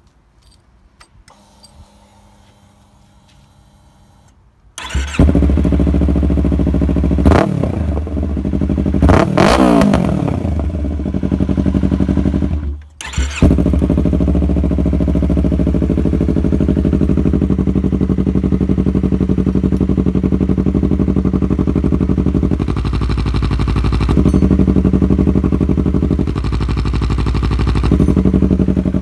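Yamaha YZF-R3's parallel-twin engine starting about five seconds in. It is blipped twice, the second rev rising and falling in pitch, then settles to a steady idle with two light throttle openings near the end.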